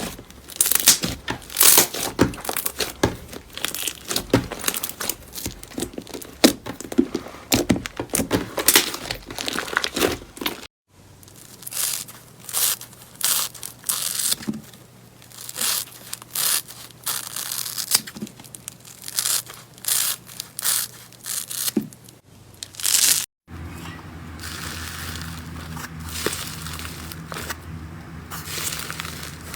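Slime being pressed and stretched by hand, giving dense crackling and popping clicks, in three stretches broken by short cuts about eleven and twenty-three seconds in. A steady low hum runs under the last stretch.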